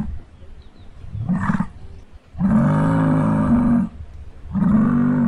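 Muskox bellowing: a series of deep, drawn-out calls. There is a short one about a second in, then a longer one lasting about a second and a half, and another starting near the end.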